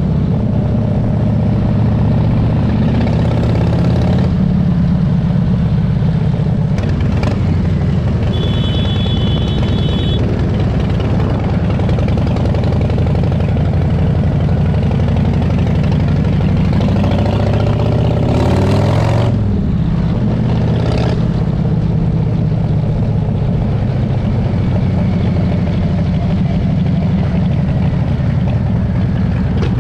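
Harley-Davidson V-twin motorcycle engines running at low revs, steady and loud, with the engine pitch sliding down and up again about two-thirds of the way through as the speed changes.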